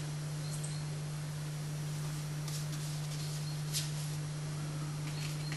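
Steady low electrical hum, with a few faint brushing sounds from a watercolour brush stroking across paper, the clearest about two and a half and nearly four seconds in.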